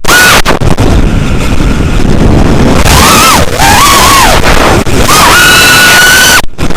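Electric motor and propeller of an FPV RC aircraft whining, its pitch rising and falling with the throttle and holding steady for a second or so, over heavy wind buffeting that overloads the onboard camera's microphone. The sound cuts out briefly near the end.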